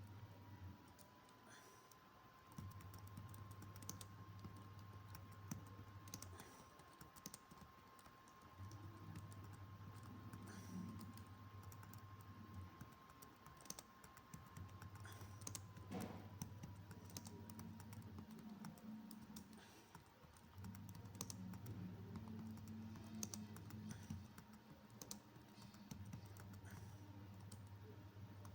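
Typing on a computer keyboard: a continuous run of quiet, quick key clicks.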